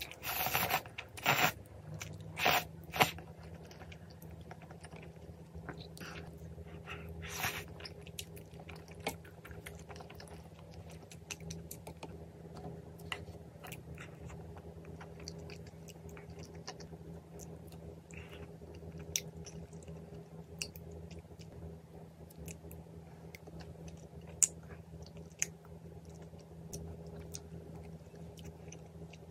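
Close-miked eating: loud chewing of creamy tteokbokki and noodles for the first couple of seconds, then quieter chewing and mouth sounds with light clicks of a metal spoon against the mint chocolate chip ice cream. A steady low hum runs underneath from about two seconds in.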